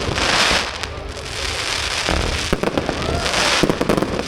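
Fireworks going off: crackling showers with many sharp pops and bangs, in two waves, one at the start and another from about two seconds in.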